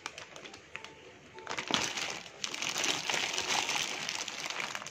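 Clear plastic packaging bag crinkling as it is handled, beginning about a second and a half in and then continuing.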